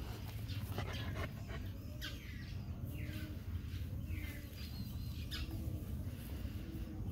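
Short, high animal calls, each falling in pitch, repeated about once a second over a steady low hum.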